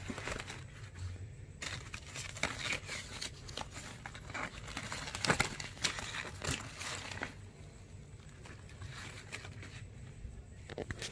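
A badminton racket bag and its packaging being handled: irregular rustling and crinkling, busiest in the middle few seconds and thinning out near the end.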